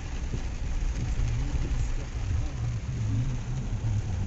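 Pickup truck engine running at low speed, heard from inside the cab, its low hum wavering a little in pitch, over a steady hiss of heavy rain.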